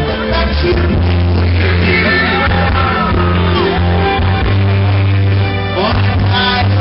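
Live pop-rock band playing loudly through a PA, with bass, electric guitar and keyboard, under a male lead singer's voice on a microphone.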